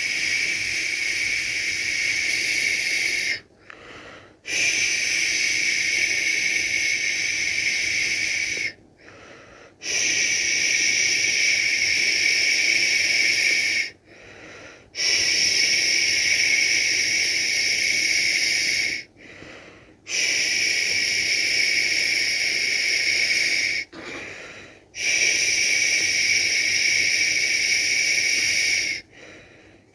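A person making long 'shhh' shushing sounds to soothe a baby to sleep, each about four seconds long, repeated steadily with a brief pause for breath between them.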